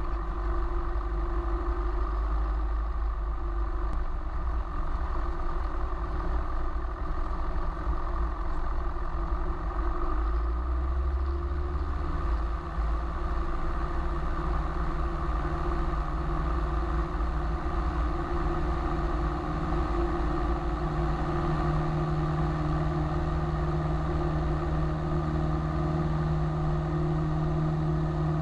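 Cessna 172's piston engine and propeller running steadily while the plane moves on the ground. The engine note changes slightly about two-thirds of the way through.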